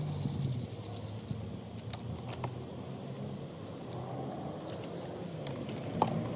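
Light hand wet-sanding of fresh spray paint with 3000-grit paper: soft, scratchy rubbing strokes, with one sharp tick near the end.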